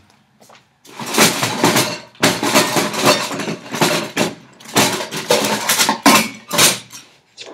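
Off-camera rummaging for a magnet: objects clattering and being shoved around in several loud bursts with short gaps.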